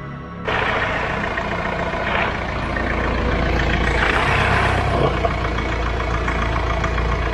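VW T5 van engine running steadily at idle, starting suddenly about half a second in, with a busy mechanical clatter over the low engine note: the noise the owner blames on a failing dual-mass flywheel clutch.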